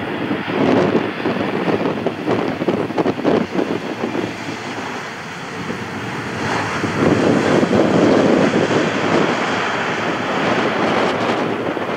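Wind buffeting the microphone in uneven gusts, a loud rushing noise that swells again about six and a half seconds in.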